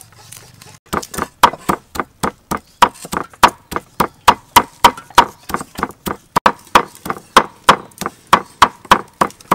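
A steel cleaver chopping rapidly and steadily onto a thick wooden tree-trunk chopping block, mincing meat. The strikes start about a second in and go on at about three a second.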